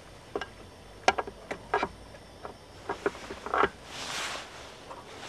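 Irregular metal clicks and knocks of a brake master cylinder being set onto the brake booster and its mounting bolts started by hand. A brief rustling hiss comes about four seconds in.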